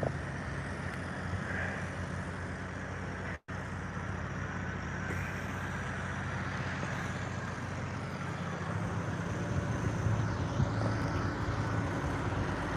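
Street traffic with a coach bus driving past: a steady low engine hum and road noise, a little louder in the last few seconds. The sound cuts out for an instant about three and a half seconds in.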